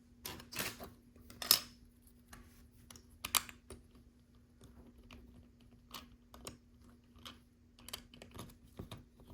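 Plastic LEGO bricks being handled and pressed together: irregular light clicks and clatter, with a few louder clicks in the first few seconds.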